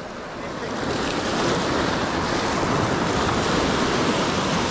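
Waves washing against a rock jetty, a steady rushing noise, with wind buffeting the microphone.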